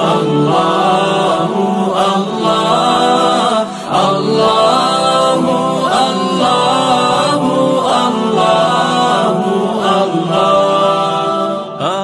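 Layered voices chanting "Allahu" over and over in slow repeating phrases: an a cappella Islamic nasheed.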